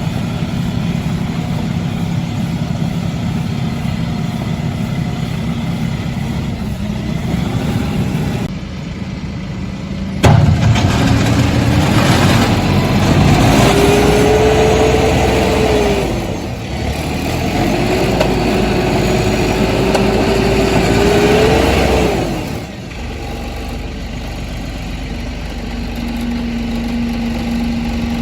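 A small farm tractor's engine runs steadily, then jumps in level about ten seconds in and is revved up twice, each time for a few seconds, before settling back to a lower, steady run.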